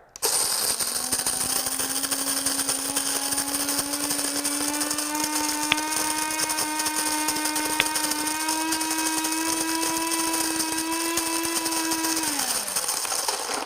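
Cuisinart automatic burr coffee grinder's motor grinding a four-cup batch of beans on the medium setting. It makes a steady hum that rises slightly in pitch, with two sharp ticks midway, then winds down and stops about a second before the end.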